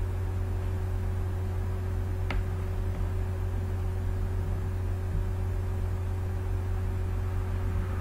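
Steady low electrical hum with a constant faint tone and hiss, and a single click about two seconds in.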